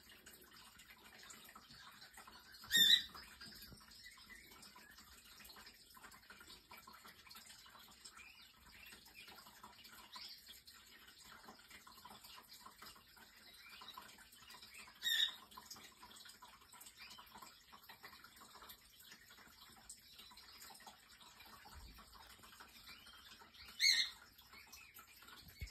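Three short, high-pitched chirps, spaced far apart, over faint room noise.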